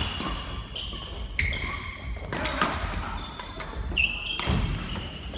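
Doubles badminton rally on a wooden court: irregular sharp hits and thuds of rackets on the shuttlecock and feet on the floor, with several short high squeaks of sports shoes on the boards.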